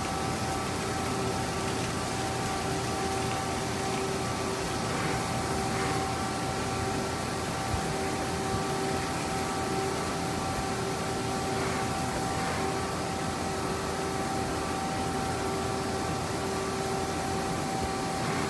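CNC milling machine cutting a metal motorcycle handlebar part: a steady whine from the spindle and cutter over the hiss of coolant and chips spraying, with a lower hum that drops in and out every couple of seconds.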